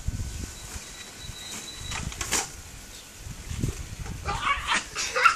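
Children's high-pitched giggles and squeals begin about four seconds in and build toward the end, over low rumbling in the first seconds.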